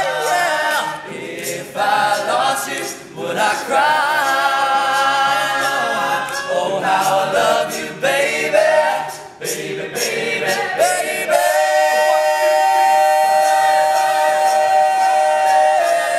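All-male a cappella group singing in close harmony, a lead voice over the group's backing. About two-thirds in they settle into one long held chord.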